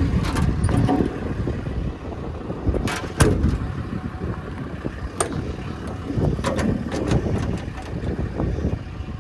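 An engine running steadily, with several sharp clicks and knocks over it, loudest about three seconds in.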